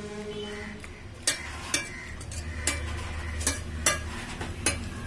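A metal spoon stirring cooked prawns in ghee gravy inside an aluminium pressure cooker pot, with about six sharp clinks and scrapes against the pot.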